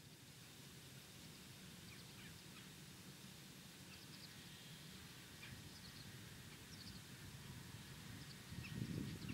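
Faint field ambience with scattered short, high bird calls. A louder low rumble of dull knocks comes near the end.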